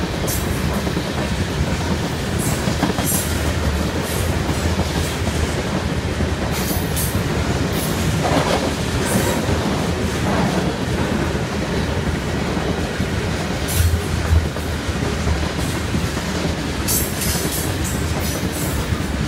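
Freight train of covered hopper cars rolling past close by: a steady rumble of steel wheels on rail with clickety-clack and short high-pitched clicks, and two louder knocks about 14 seconds in.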